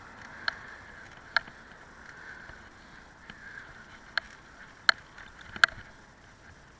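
Bicycle rolling along a path, picked up by a camera mounted on the handlebars: a steady hiss of tyre and wind noise, broken by five sharp clicks or rattles of the bike and its mount, two in the first half and three in the second.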